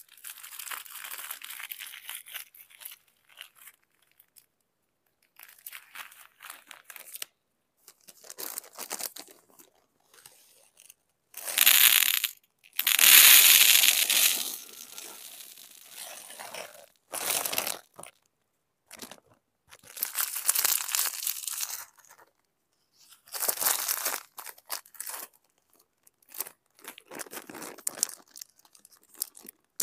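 Small plastic packets of seed beads crinkling as they are handled and torn open, with beads pouring from them into the compartments of a plastic organizer box. The sound comes in separate bursts with sharp silent gaps between; the loudest and longest is from about twelve to fifteen seconds in.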